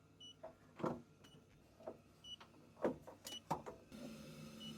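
Electronic gas leak detector beeping slowly, a short high beep about once a second, its idle rate: no leak picked up at the sump seal. There are a few sharp knocks of handling, and about four seconds in a steady hum starts up.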